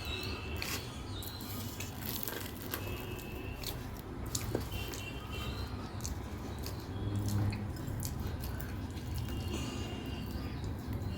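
Close-up eating sounds: chewing with soft wet squishes and small clicks, over a steady low background rumble.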